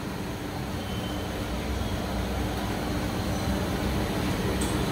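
Steady rumble and hiss of samosas deep-frying in oil in an iron kadai over a gas burner.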